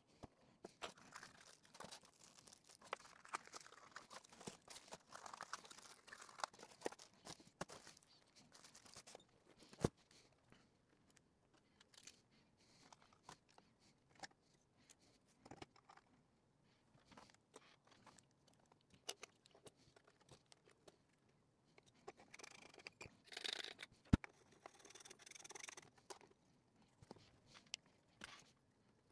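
Faint handling noises from a stereo microscope's parts and its foam packing. There is rustling and scraping for the first several seconds, then scattered clicks and knocks with one sharp knock about ten seconds in, and another stretch of rustling with a sharp click near the end.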